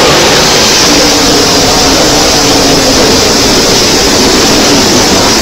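An engine running steadily, almost buried under a loud, constant rushing hiss.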